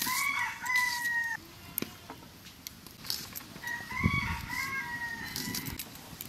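A rooster crowing twice, each crow a drawn-out call of about a second and a half; the second starts about four seconds in.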